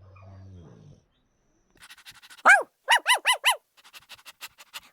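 A dog yipping: after a short low rumble at the start, one loud high yip about halfway through, then four quick yips in a row, each rising and falling in pitch, with faint rapid ticking around them.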